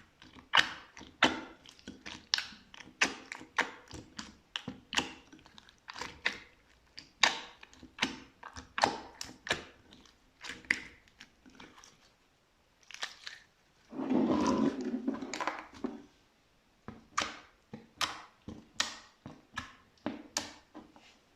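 Slime being pressed and poked by hand, making sharp wet pops and clicks two or three times a second. About two-thirds of the way through, a longer squelching stretch is heard as the slime is squeezed.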